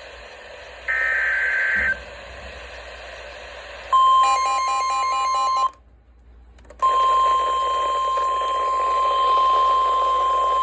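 Emergency Alert System tones from a weather radio: about a second in, a one-second burst of warbling digital header data; about four seconds in, a short patterned burst of electronic beeps; then after a brief silence the steady single-pitch weather radio warning alarm tone starts and holds, announcing a new warning.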